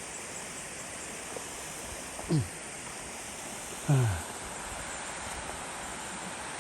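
Steady rushing of a waterfall, with two short vocal sounds, each dropping in pitch, about two and four seconds in.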